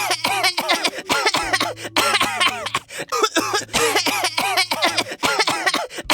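A person coughing in a long, rapid fit of short voiced coughs, several a second, with hardly a break.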